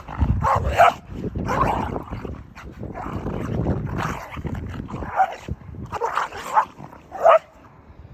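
Dogs barking and yipping repeatedly, short calls about a second apart, over a low rushing noise; the last bark comes a little before the end.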